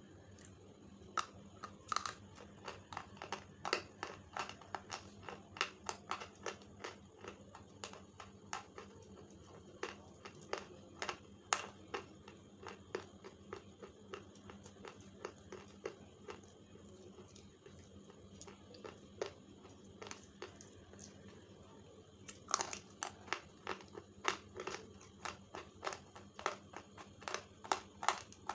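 Slate pencils being bitten and chewed, a rapid, irregular run of sharp, dry crunches and snaps, thinning out for a few seconds midway before picking up again.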